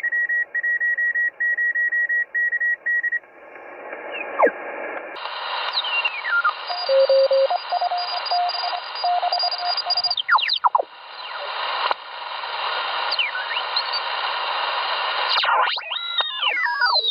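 HF ham radio receiver audio as the tuning knob is turned across a band, sped up to twice speed: steady band hiss with a high keyed Morse code tone for the first three seconds, then whistling carriers sliding in pitch as the dial moves, a lower Morse signal in the middle and a cluster of sweeping whistles near the end.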